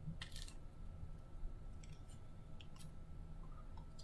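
A few faint clicks and light rustles over a low steady hum, with a slightly louder rustle in the first half second.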